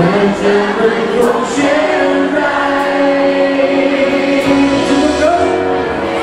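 Live pop band playing with singing, the voices holding long notes.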